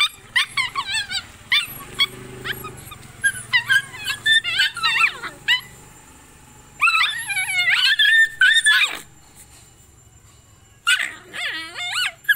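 Two desi puppies play-fighting, giving short, high-pitched yips and whines in clusters, with a lull of about two seconds near the end before a last flurry.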